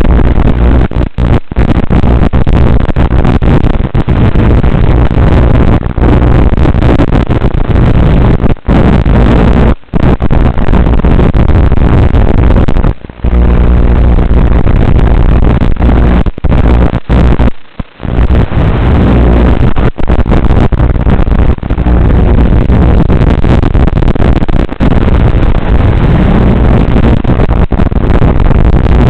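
Loud, distorted motor and propeller noise of a Blade Torrent 110 FPV quadcopter, heard with wind, broken again and again by brief dropouts. The dropouts are typical of interference on the FPV link.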